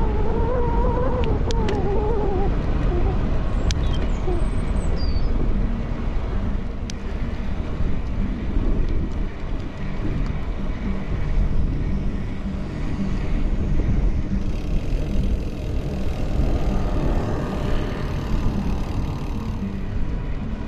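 Wind rumbling on the camera microphone and tyres rolling on tarmac as a road e-bike is ridden along, with a few short clicks in the first seven seconds. A wavering pitched sound is heard in the first three seconds, and a brief high chirp about four seconds in.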